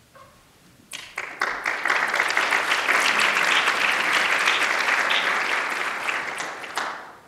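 Audience applauding in a room, starting about a second in, building quickly and dying away near the end.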